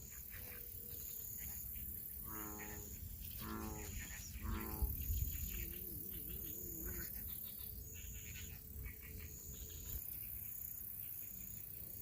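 Wild animal calls from the marsh: three short calls a couple of seconds in, then a brief wavering call. Throughout, a faint high chirp repeats about once a second.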